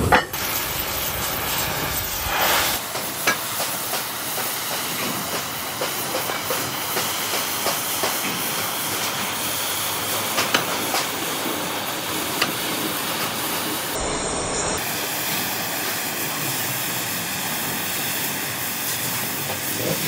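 Steady hissing noise of metalworking on truck rim steel, with a few sharp clicks, changing abruptly twice where the footage is cut.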